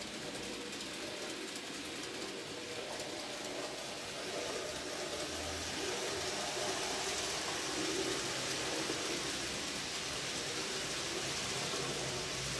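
N-gauge model train running along the track: a steady hiss and rattle of small wheels on rail with a whirring motor hum, growing louder about four seconds in as it draws nearer.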